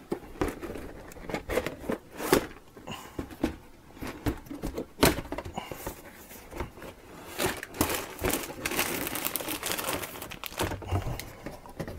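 A cardboard model-kit box being opened and its contents handled: scattered taps, knocks and scrapes, with a denser stretch of crinkling about eight to ten seconds in.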